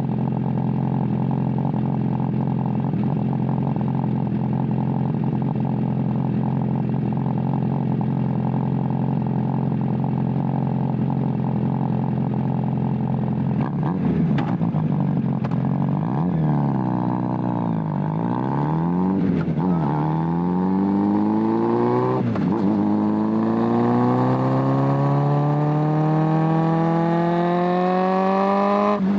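Suzuki Bandit 600 café racer's carburetted inline-four engine idling steadily, then revving and pulling away a little under halfway through, its pitch climbing steadily as it gathers speed. A few sharp clicks come during the revving.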